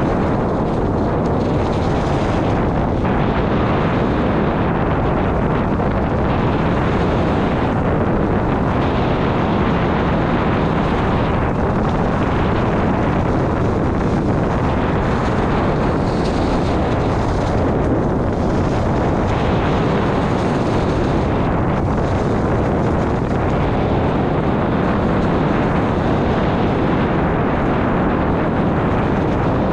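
Steady, loud wind rush and rumble on the camera's microphone from moving fast downhill, an even noise that hardly changes.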